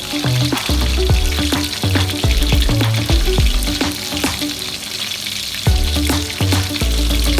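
Food frying and sizzling in a pan while being stirred, with sharp taps of the utensil against the pan. Background music with a repeating bass line plays underneath.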